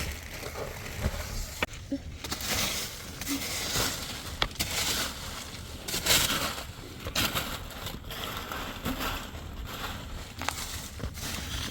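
Irregular crunching and rustling noises, with a few sharp clicks scattered through.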